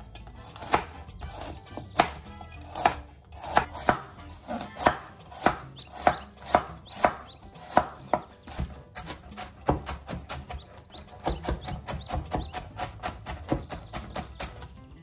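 Chef's knife cutting a carrot on a bamboo cutting board, each cut ending in a sharp knock of the blade on the wood. The cuts come about two a second while slicing rounds, then quicken to three or four a second about nine seconds in as the rounds are diced.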